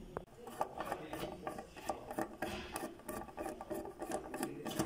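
Screwdriver turning a screw out of the sheet-metal case of a switching LED power supply: an irregular run of short metallic scrapes and clicks, several a second.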